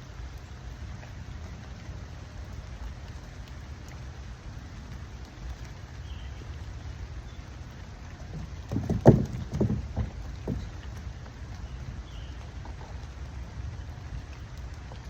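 Steady rain, broken by a short run of dull thumps about nine seconds in.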